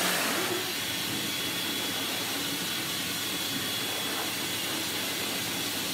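Hose-fed pet grooming dryer running steadily, blowing air onto a wet dog's coat: an even rushing of air with a thin high whine.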